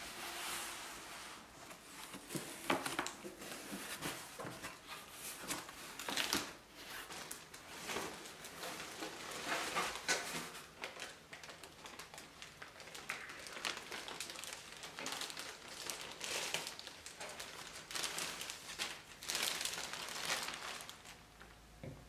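Clear plastic packaging crinkling and rustling in irregular bursts as a wire globe bird feeder is pulled from a cardboard box and unwrapped, with a few light knocks of handling.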